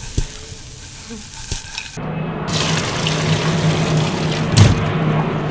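A quiet start with a couple of light knocks. About two seconds in, water starts pouring and splashing steadily into a stainless steel sink, with a sharp knock near the end.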